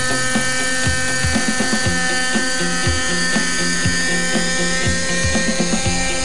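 Nitro-powered Raptor .32 RC helicopter running with a steady high engine whine as it flies and hovers, mixed with background music with a steady beat and bassline.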